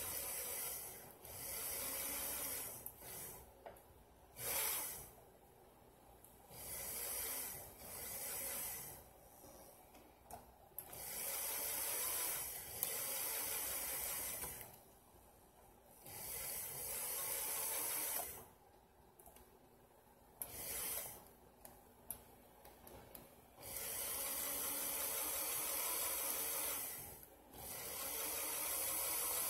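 Aerosol lubricant hissing through a red extension straw in repeated bursts, each from under a second to about three seconds long, with short pauses between them, as a sewing machine's mechanism is oiled.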